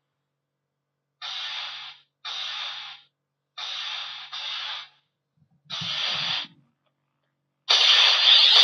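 CSM Kuuga transformation belt playing its special henshin sound effect for the punching scene: five short noisy bursts about a second apart. A louder, sustained transformation sound starts near the end.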